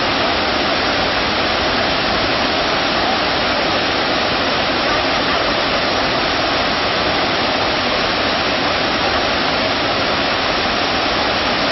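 Waterfall: a steady, loud rush of falling water, unbroken throughout.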